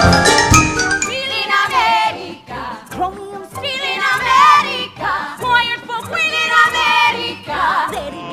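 An ensemble of voices singing a Broadway show tune over accompaniment with a steady beat.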